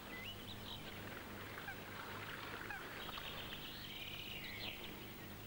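Faint birdsong: scattered short chirps, then a rapid twittering trill from about three seconds in, over a low steady hum.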